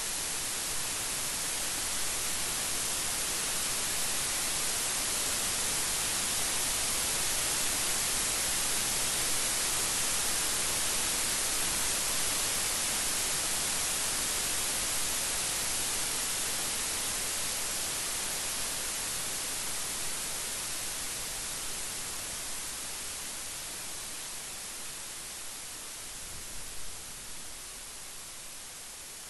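Steady rain falling, a dense even hiss that eases a little in the last third.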